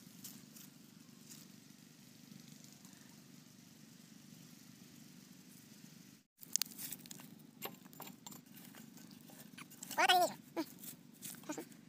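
Scattered clicks and knocks of hands working on the pumpset's fittings and pipe, over a low steady background hum. A goat bleats once, loudly, about ten seconds in.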